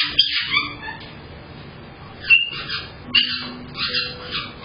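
Caique parrots squawking and chirping in short, shrill calls heard through a security camera's microphone: a cluster of calls at the start, then a quiet stretch, then another run of calls from about two seconds in.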